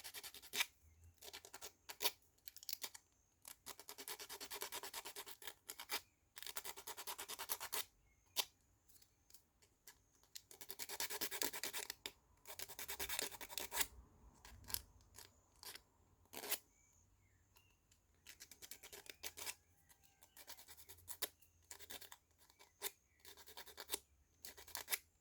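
Hand sanding the edge of a laser-cut wooden puzzle piece: spells of rasping strokes lasting a second or two, with pauses and small clicks and taps in between. The edge is being rounded over so it won't catch in the sliding mechanism.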